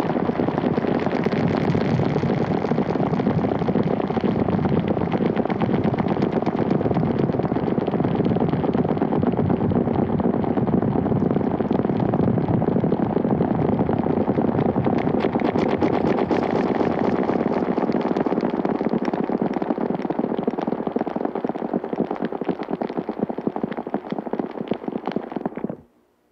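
Dense, steady clatter of many overlapping footsteps layered into a crackling wash of sharp taps. It cuts off suddenly near the end.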